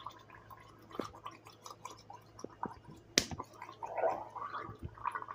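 Gurgling, bubbling sounds in short irregular bursts, with a few clicks and one sharp knock about three seconds in.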